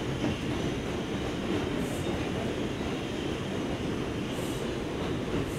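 New York City Subway 4 train running, heard from inside the car: a steady rumble of the train on the track.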